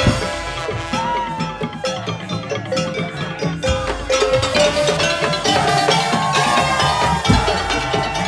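Madurese tong-tong (musik tongtong) ensemble playing an arrangement: a gliding melodic line over busy wooden and drum percussion, with deep drum strokes near the start, in the middle and near the end.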